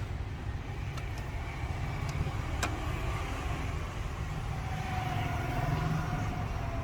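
Steady low background rumble, with a few faint sharp clicks and a faint steady tone in the second half.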